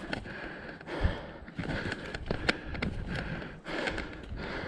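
A hiker breathing hard close to the microphone, with irregular clicks and scuffs of footsteps and gear and a thump about a second in.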